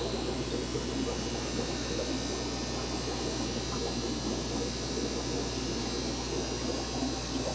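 Steady electrical hum with a constant hiss and a soft fluttering water noise: the air supply running the tanks' sponge filters, bubbling through their lift tubes.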